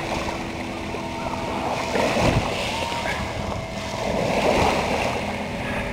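Waves lapping and splashing against the hull of a small fishing boat at sea, swelling and easing a couple of times.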